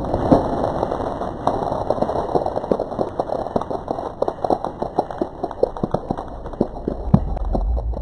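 Water from a water-pressure bottle rocket spraying and raining down: an irregular crackling patter of drops that thins out over the seconds.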